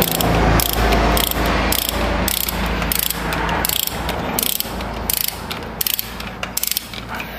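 Hand ratchet wrench clicking in repeated back-and-forth strokes, about two a second, as a cylinder head bolt is wound in.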